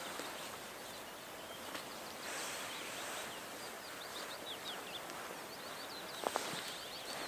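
Small birds chirping in quick short notes over a steady rushing background of wind, with a couple of sharp knocks about six seconds in.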